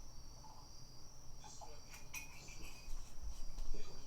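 Crickets chirring steadily in a faint, high-pitched drone, with some low bumps and rumble building near the end.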